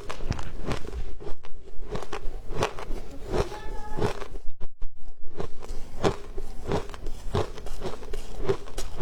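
Frozen ice being bitten and chewed, with repeated crunches about twice a second and a short pause near the middle.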